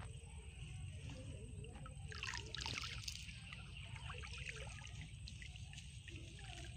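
Water trickling and dripping from a wet cast net as it is lifted and handled in shallow canal water. A steady low rumble runs underneath.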